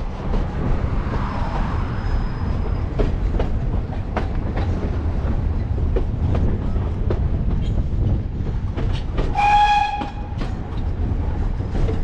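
Narrow-gauge steam train running, a steady low rumble with irregular clicks and clacks of the wheels on the track. About nine seconds in, the steam locomotive gives one short whistle blast.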